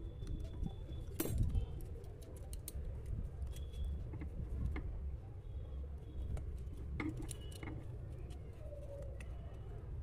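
Small clicks and light clatter from handling an opened electric trimmer: its plastic housing and circuit board knocking and scraping as they are worked apart by hand.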